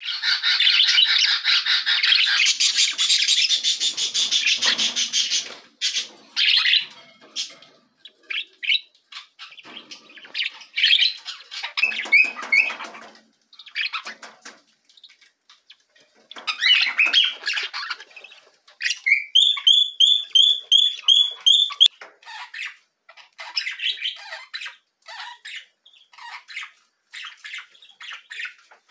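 Budgerigars chattering and squawking: a dense, fast warble for the first five seconds or so, then scattered short calls, with a quick run of about eight repeated rising chirps around twenty seconds in.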